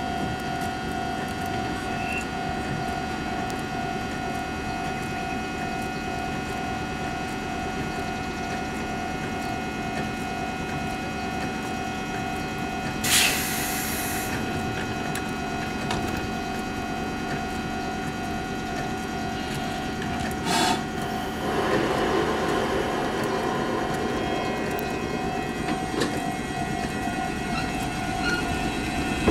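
JR 105 series electric train standing at a platform with a steady hum, giving a short loud hiss of air about 13 seconds in. About 21 seconds in it begins to pull away, and its running noise builds over the last several seconds.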